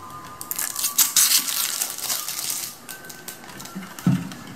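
Thin plastic protective film peeled off the casing of a Wi-Fi repeater, crackling for about two seconds. A dull knock comes near the end as the unit is handled.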